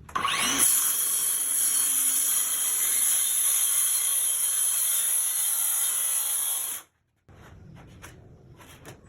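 Circular saw spinning up with a rising whine, then cutting through a sheet of high-pressure laminate (HPL) with a steady, loud, high-pitched whine for about six seconds. The sound cuts off abruptly, followed by quieter scattered knocks and handling noises.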